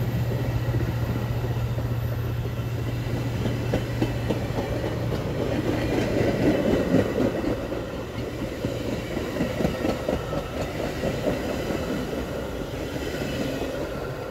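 Metra double-deck gallery passenger cars rolling past close by, steel wheels clacking and rumbling on the rails. A steady low hum fades out about five seconds in.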